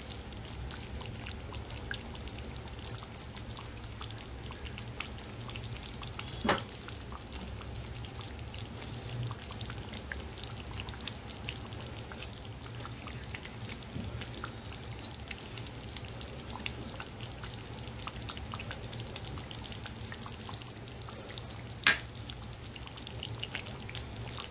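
Thick chicken gravy simmering in a pan on low heat: a steady fine crackle of small bubbles popping over a low steady hum. Two sharper clicks stand out, one about six seconds in and one near the end.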